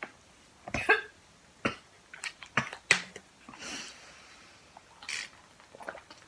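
A woman coughing and clearing her throat after a gummy candy that tastes of soap, with a run of short coughs and clicks in the first three seconds. Then a few softer sounds as she drinks from a plastic water bottle.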